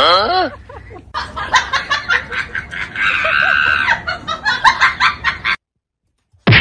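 Comedy sound effects: a wobbling, swooping whistle-like glide, then a fast run of short cackling calls that cut off abruptly about five and a half seconds in. A sharp click follows near the end.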